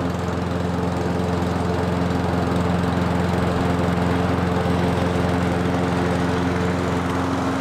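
Masport Rotarola rear-roller rotary mower's small petrol engine running steadily at an even pitch while the mower is pushed across the lawn.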